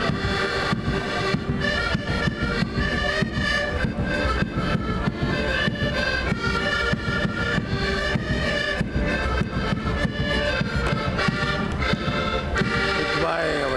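Several accordions playing a tune together with a steady rhythmic beat.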